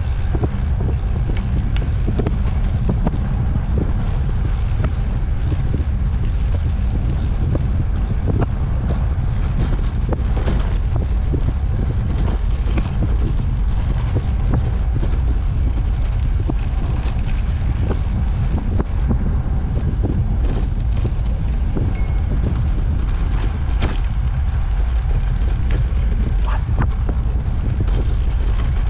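Wind buffeting the microphone and tyre rumble from an ICE Sprint X 26 recumbent trike riding along a track, with scattered small rattles and knocks from bumps.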